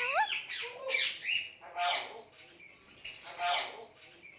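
Indian ringneck parrot calling: quick rising whistles at the start, then a few harsh squawks spaced about a second or more apart, dying away toward the end.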